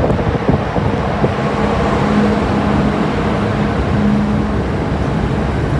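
Steady rumbling vehicle and engine noise aboard a car ferry. A low, even hum comes in about a second in.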